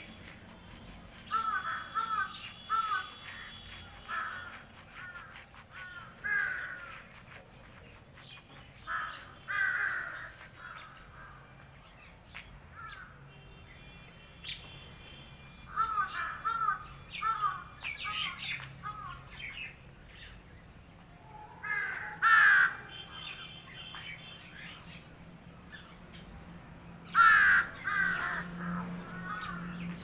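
Flock of crows cawing in repeated bouts of hoarse calls, several birds at once. The loudest caws come a little past the middle and again near the end.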